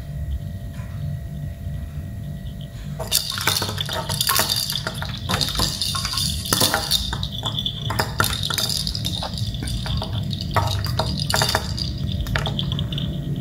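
Small bells jingling and clinking in quick, irregular bursts as a kitten bats at a dangling toy ball, starting about three seconds in.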